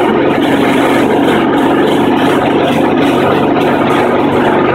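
Small lawn mower engine running steadily under load, turning an alternator that is charging 12-volt batteries at several hundred watts.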